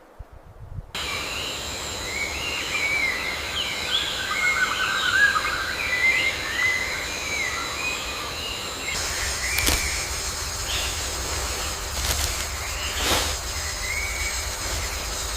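Outdoor nature ambience that starts about a second in: birds chirping and warbling over a steady high-pitched drone and a low rumble, with a few short sharp clicks in the second half.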